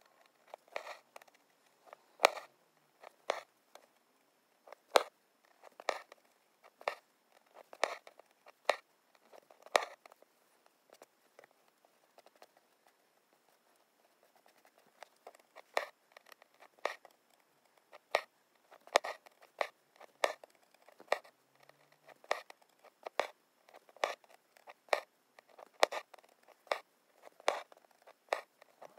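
Embroidery needle poking through fabric stretched taut in an embroidery hoop during hand stitching: sharp taps about once a second, with a gap of a few seconds about halfway.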